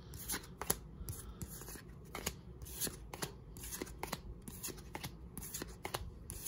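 Pokémon trading cards being flipped and slid one over another while going through a freshly opened booster pack: an irregular run of soft card snaps and rustles.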